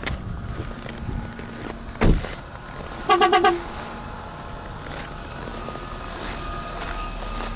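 Renault Arkana engine idling steadily just after a hard cold start in hard frost, with the gearbox humming as its cold bearings turn. About two seconds in there is a single heavy thump, and a second later four quick electronic beeps.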